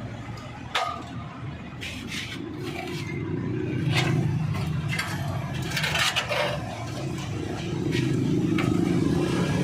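An engine running, its low sound swelling and easing, with scattered clicks and scraping strokes over it.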